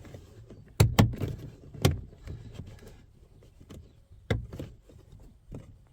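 Plastic door handle trim on a Mk4 VW Golf door knocking and clicking as it is lined up and pushed into its clips, a fiddly fit. Several sharp knocks: two close together about a second in, one near two seconds, another just past four seconds, with lighter taps between.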